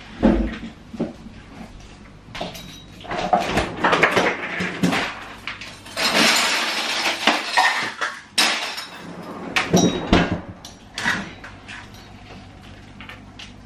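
Kitchen handling noises: a knock as someone gets up from a chair, then irregular clatter of a cup and a French-door refrigerator being opened, with a longer rattling rush about halfway through.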